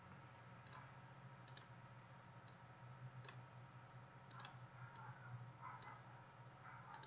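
Faint, scattered clicks of a computer mouse, about ten of them, over a low steady hum of room tone.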